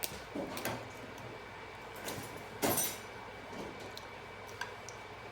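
Crab and seafood boil being eaten by hand: a few short cracks and rustles of shell and food, the loudest about halfway through.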